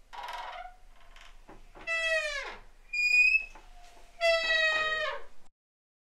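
Wooden door's hinges creaking and squeaking as it is swung: a short scratchy creak, then several long pitched squeaks, some sliding down in pitch, before it stops suddenly near the end.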